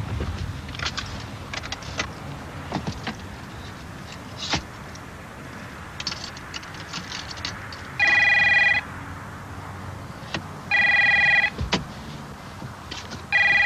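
Light scattered clicks, then a telephone ringing three times: each ring is a steady electronic trill under a second long, about two and a half seconds apart, and the rings are the loudest sound.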